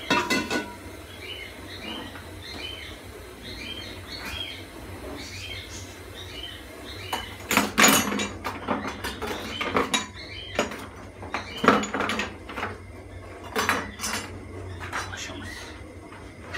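Kitchenware clattering and knocking as someone rummages through a low kitchen drawer, starting about seven seconds in, with the loudest clatters near eight and twelve seconds. Before that a small bird chirps quickly and repeatedly.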